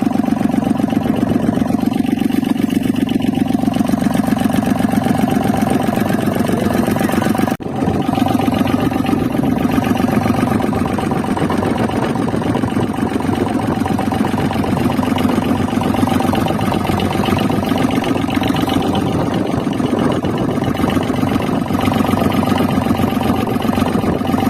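An engine running steadily at an even speed, with a brief break about seven and a half seconds in.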